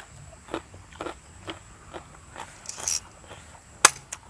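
Close-miked eating: short crunching bites and chewing of crisp food, raw green chili and fried nuggets, coming in an irregular string of two or three crunches a second, with one sharp click near the end.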